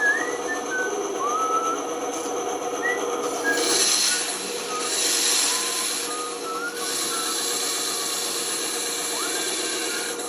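Band saw running and cutting wood, a steady motor hum under the blade's hiss, with many short high squeaks from the blade in the cut and louder cutting passes around four and around five to seven seconds in.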